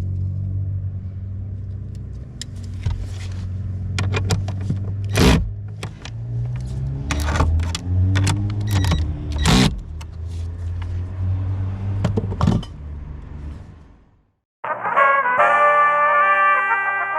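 BMW F20/F21 running with a steady low hum, with several sharp clunks and knocks over it. After about fourteen seconds it cuts off, and brass music starts.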